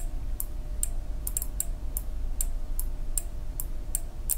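Small cheap 12-volt relay with its case removed, clicking repeatedly as its armature pulls in and releases, a sharp tick about twice a second. The coil and contacts are working.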